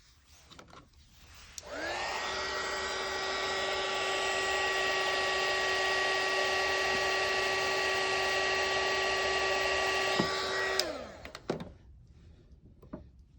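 Hot-air blower shrinking heat-shrink tubing over a wire joint: the motor spins up with a rising whine about a second and a half in, then runs steadily with a rush of air and a constant whine, and switches off near the end with a falling wind-down.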